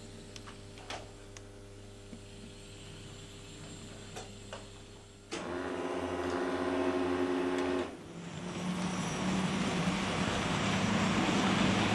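HO-scale model trains running on the layout: a steady hum with a few faint clicks at first, then a steady motor hum. From about eight seconds in, a model train's rolling noise and motor whine grow louder as it approaches.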